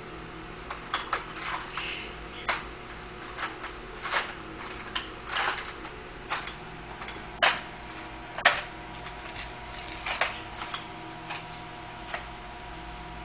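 Irregular light clicks and taps, several a second at times, some sharper than others.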